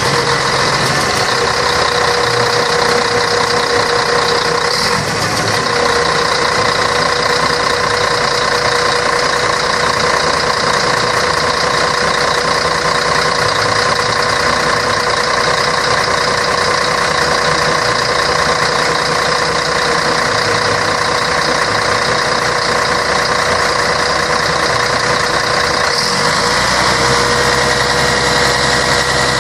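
Scania K113 bus's straight-six diesel engine running steadily, with a steady whine over it. About 26 seconds in, the tone shifts and the low rumble grows louder.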